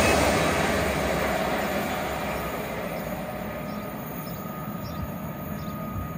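A Great Western Railway passenger train running away at speed along the main line. The rumble of its wheels on the rails fades steadily over about four seconds, leaving a faint background hush.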